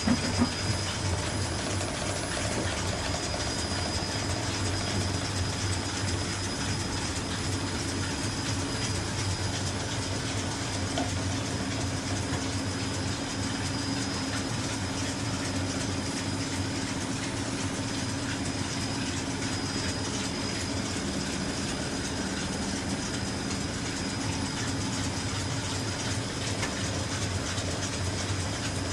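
Automatic box collector on a carton conveyor line running steadily: belts and rollers rattling with a dense stream of rapid clicks as flat cartons feed through, over a steady motor hum and a faint high whine. A few sharper knocks come right at the start.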